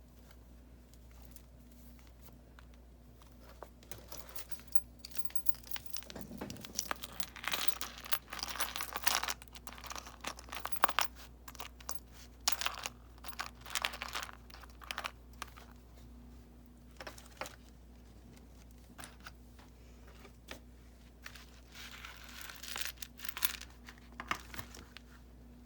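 Paper pages of a handmade junk journal being handled and turned: bouts of rustling and crinkling with sharp clicks, the busiest stretch from about four to sixteen seconds in and another short bout near the end, over a steady low hum.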